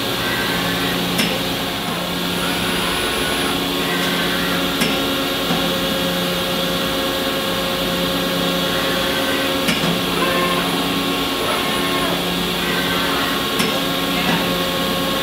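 Okuma five-axis machining center running a spot-drilling cycle: a steady machine hum with a few higher whining tones, broken by a few sharp clicks several seconds apart as the trunnion table tilts and turns between the vise-held parts.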